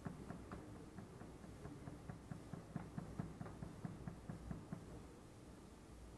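A quick run of light taps, about four a second, for some five seconds, louder in the middle and then stopping.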